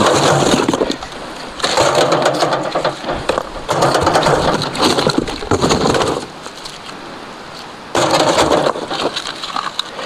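Lumps of homemade charcoal clattering and crunching against each other and the cardboard box as they are picked through and sorted by hand, in four bursts with short pauses between. Some pieces are not fully charred and are set aside to be burned again.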